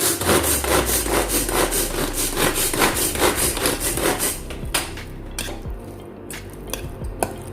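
Kitchen utensil scraping and working food in a bowl with quick repeated strokes, about five a second, easing off after about four and a half seconds into a few lighter clicks and taps. This is the sound of mixing crab sticks with Kewpie mayonnaise.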